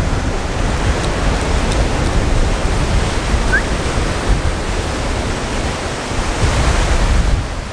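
Strong wind blowing across the microphone: a steady rushing hiss over a low, fluttering buffet, with the hiss growing brighter shortly before the end.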